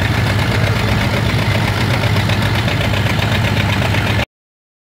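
Antique farm tractor engines running steadily with a regular beat. The sound cuts off abruptly about four seconds in.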